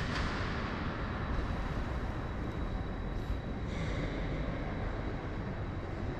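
Steady low rumbling background noise of a large industrial hall, with a faint steady high whine.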